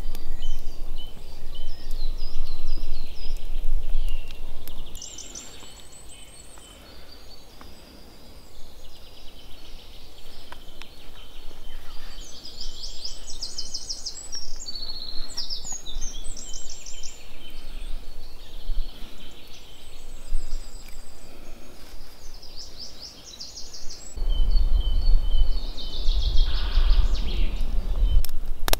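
Several small songbirds singing in woodland, with repeated fast high trills and chirps throughout. Under them is a low rumbling noise, loudest near the start and over the last few seconds.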